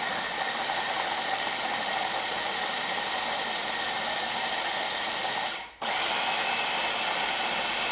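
Food processor running steadily, its blade chopping warm cooked chickpeas in the first stage of blending them into a hummus paste. The motor cuts out for a split second about three-quarters of the way through, then runs on.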